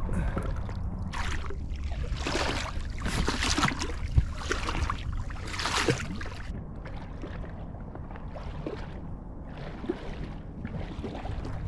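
Double-bladed kayak paddle dipping and splashing in the water, a stroke about every second for the first half, then quieter water lapping against the hull.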